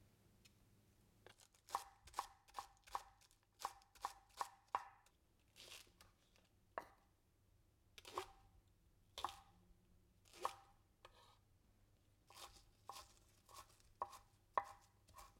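Kitchen knife chopping green garlic on a wooden cutting board: a series of sharp knocks, coming in quick runs of about three a second with pauses between them.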